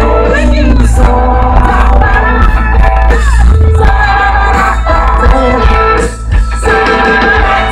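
Live country-rock band playing loud, with amplified singing, guitars and a heavy bass.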